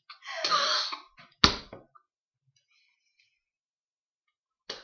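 A person's breathy sigh, then a single sharp knock about a second and a half in.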